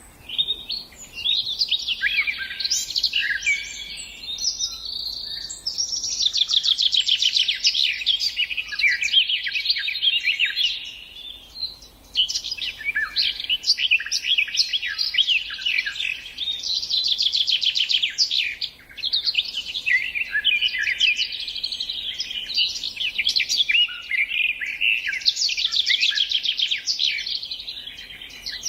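Songbirds singing in a near-continuous run of fast trills and chirps, with brief lulls about twelve and nineteen seconds in.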